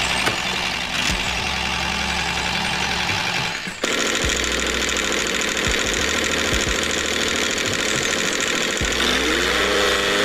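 Small electric motor and gearing of a homemade miniature toy tractor, running with a steady whir. The sound breaks off and restarts about four seconds in, and near the end a motor whine rises in pitch as it speeds up.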